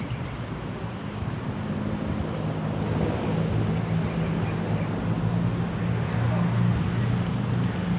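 An engine running with a steady low hum that grows louder from about two seconds in as it draws nearer, over a steady background rush.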